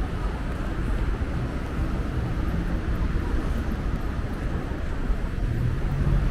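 City street ambience: a steady rumble of traffic with indistinct voices of passers-by. A vehicle's low engine sound grows louder near the end.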